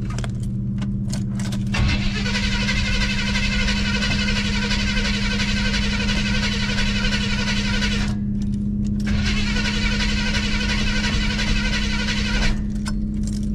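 Starter motor cranking an old carbureted car engine in two long tries, about six seconds and then about three, with a short pause between. The engine does not catch: a hard start that he means to help with starter fluid or gas poured down the carburetor.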